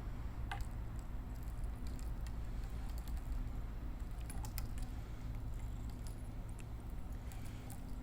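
A cat chewing dry food: scattered faint crunching clicks over a steady low rumble.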